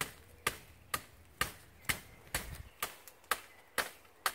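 Folding military shovel chopping into woody undergrowth: sharp, even strikes about two a second, around nine in all.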